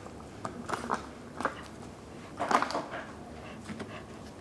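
Plastic lid being pried off a disposable food container: a few light clicks and crinkles of plastic, the loudest about two and a half seconds in.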